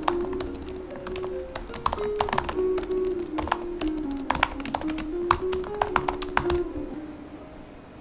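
Typing on a laptop keyboard: quick, irregular key clicks that stop about two-thirds of the way through, over background music with steady held notes.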